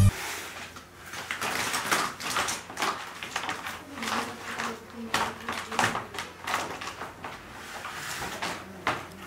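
Handling of a blue plastic basket and its round lid: a run of small hard-plastic knocks, clicks and scrapes as the lid is lifted and moved.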